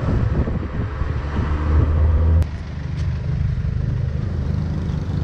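Songthaew pickup-truck taxi's engine running, heard from the rear passenger bench as a steady low rumble. About two and a half seconds in it drops suddenly to a lower, steadier hum.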